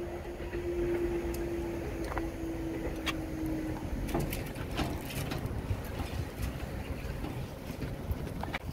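Level crossing barriers rising, with a steady hum from the barrier mechanism that stops about four seconds in as the booms reach upright. A car then starts over the crossing with a low engine rumble and a few sharp clacks.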